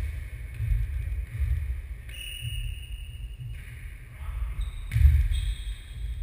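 Ball bounces echoing around a large sports hall during a ball game, over a strong, uneven low rumble.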